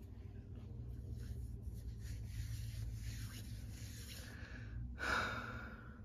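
A person breathing close to the microphone, with one sharp, louder breath about five seconds in, over a low steady hum.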